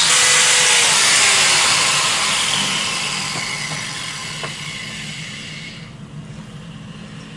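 A vehicle passing on the road, a loud rushing that starts abruptly and fades away over about six seconds, over a steady low hum.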